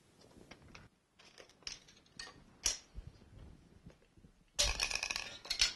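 Scattered light clicks and taps from handling a tape measure against PVC pipe, then a dense rattle lasting about a second near the end.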